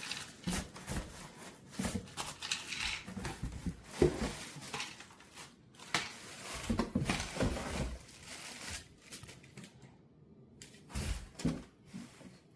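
Irregular handling noises: packaging rustling and crinkling, with plastic parts knocking and clicking. No motor is running.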